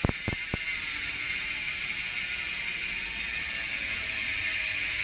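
Mountain bike's rear freehub ratcheting as the wheel spins freely: a few separate clicks at the start, then a steady high buzz.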